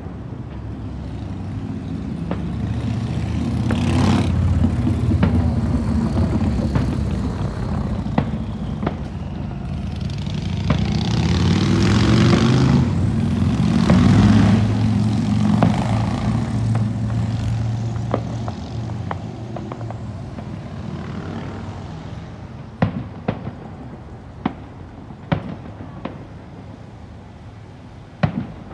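Fireworks display: scattered sharp bangs of shells bursting, a busier stretch of crackle through the middle, and a cluster of bangs near the end. Under them a low droning rumble swells over the first half and fades away.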